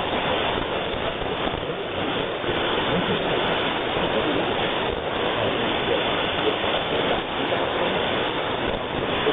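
Shortwave radio static: the steady hiss of a weak AM signal on 4940 kHz in the 62-metre band, received through an FDM-S2 software-defined radio, with no clear programme audio standing out of the noise.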